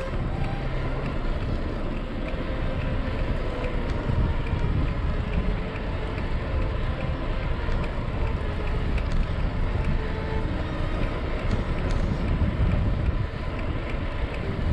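Wind buffeting the microphone and steady tyre and road rumble from a hybrid bicycle coasting downhill at about 18 mph.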